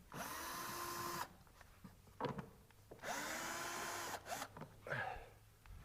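Small power driver with an 8 mm socket spinning out cowl-cover bolts, in two steady runs of about a second each.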